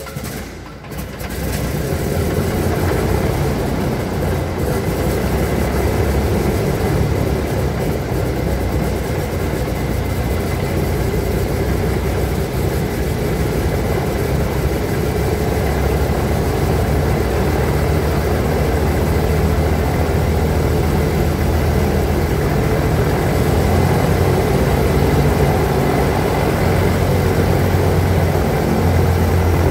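Antonov An-2's nine-cylinder Shvetsov ASh-62 radial engine idling steadily after a cold start, rising to full level over the first second or two.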